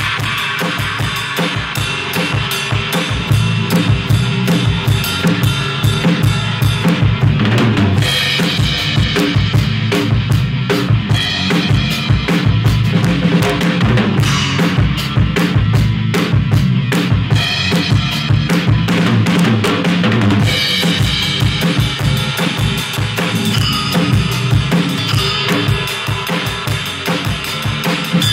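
Acoustic drum kit played in a steady rock groove: kick drum, snare and crash and ride cymbals, with bright cymbal washes coming and going. Other band instruments play along underneath in a live jam.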